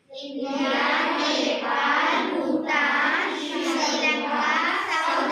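A class of children answering together in a loud, chant-like chorus for about five seconds.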